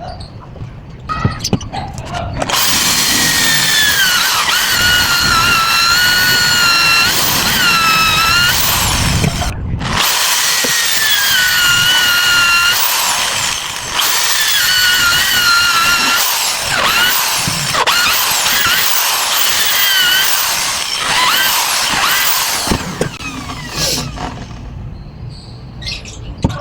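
Electric power drill running in long stretches, its high whine dipping and recovering in pitch. It stops briefly twice and winds down near the end.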